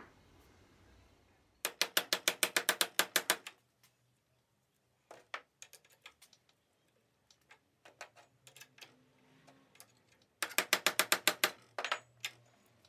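Two quick runs of sharp taps, about six a second, with a few scattered knocks in between: hand-tool work on an electric motor being reassembled after its front bearing was replaced.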